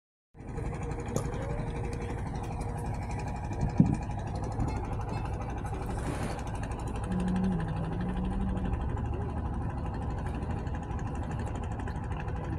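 A motorboat's engine running steadily while underway, a low rumble with a steady hum in it. A single brief knock comes about four seconds in.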